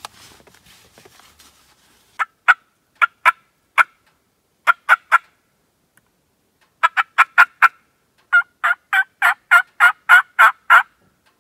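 A hunter blowing a hand-held game call to make a turkey answer: four runs of short, sharp, evenly spaced calls, the last and loudest a run of about ten notes.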